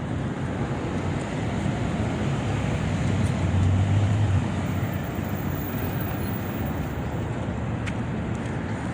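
Steady city street traffic, a continuous rush of passing vehicles. About three and a half seconds in, one vehicle passes closer, its low engine rumble swelling and then fading.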